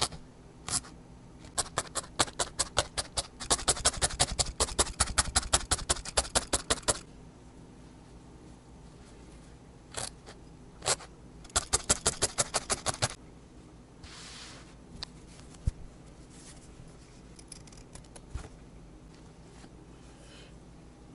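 Felting needle jabbing repeatedly through wool roving into burlap, quick crunchy stabs about six a second in two runs, the first a few seconds long and the second shorter, with a few single taps between.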